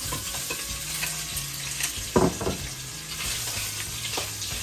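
Food sizzling in a hot pan on the stove, with a utensil stirring and clicking against the pan; one louder knock about two seconds in.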